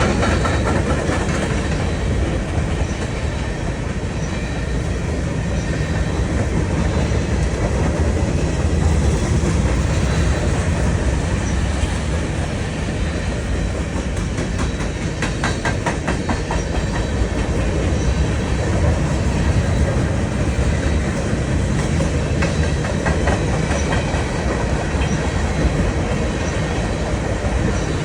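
Freight train cars rolling past, a steady rumble with wheels clicking over rail joints, a quick run of clicks about halfway through.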